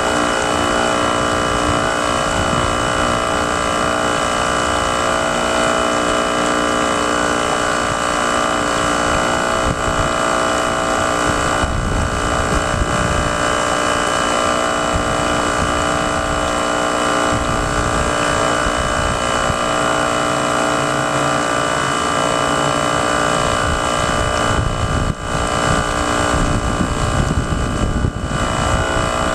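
Radio-controlled model boat motors running steadily, a constant whine of several fixed tones over a rumble, with wind buffeting the microphone.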